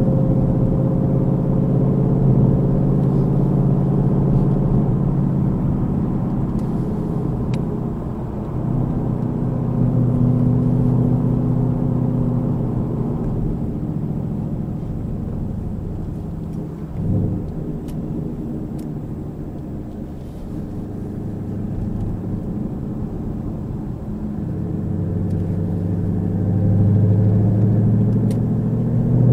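Car engine and road noise heard from inside the cabin, a steady low hum whose pitch and loudness drift as the car speeds up and slows on a winding road. A brief thump about halfway through.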